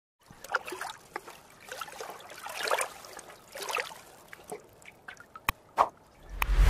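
Animated logo-intro sound effects: irregular soft crackling swishes, then a few sharp clicks, and a deep swelling whoosh near the end.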